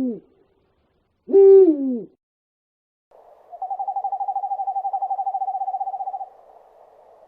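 Owl calls: a hoot that holds its pitch and then falls, about a second and a half in, then a long, even trill of rapid pulses on one pitch lasting about three seconds, over a faint hiss.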